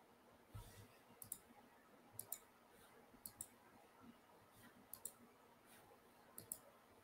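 Faint computer mouse button clicks, five in all, spaced about one to one and a half seconds apart, each a quick double tick of press and release. A soft low thump comes about half a second in.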